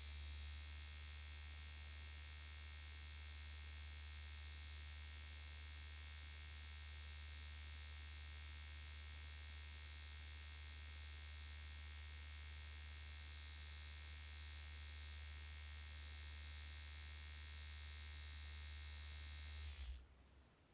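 Steady electric vibrating buzz, a low hum with a thin high whine over it, held without a break and cutting off suddenly near the end.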